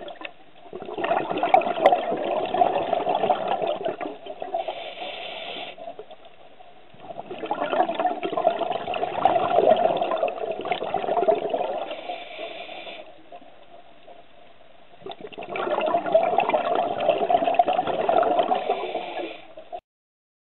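Scuba regulator exhaust bubbles heard underwater, three long bubbling exhalations a few seconds apart with quieter stretches between breaths. The sound cuts off suddenly near the end.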